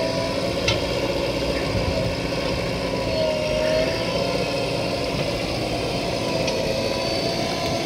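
Diesel engines of a Farmtrac 60 tractor and a JCB backhoe loader running steadily together, with a steady mid-pitched tone over the engine hum.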